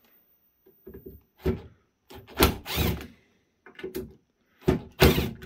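Cordless electric screwdriver running in five short bursts, the longest about a second near the middle, backing screws out of the unit's steel top cover plate.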